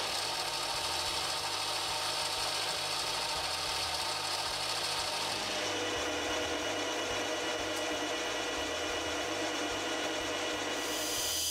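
Metal lathe running steadily while an insert tool cuts a steel bar, a constant machine hum under the cutting noise. About halfway through the sound changes as the work goes from facing the end of the bar to turning its outside diameter between centres.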